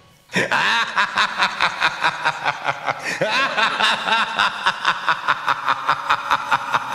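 Rapid, evenly paced laughing, about six 'ha's a second, starting just after a brief moment of silence and keeping up without a break.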